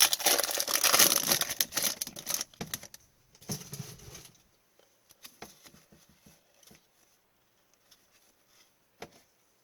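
Hockey card pack wrapper crinkling and tearing for about two and a half seconds, then faint scattered clicks and slides as the cards are handled.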